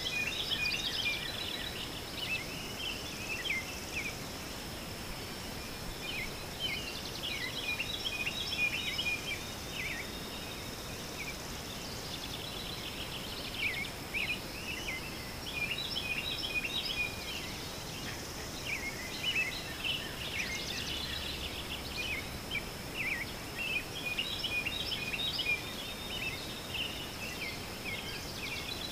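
Outdoor summer ambience: many short high bird chirps repeating throughout, over a steady thin high insect whine and an even background hiss.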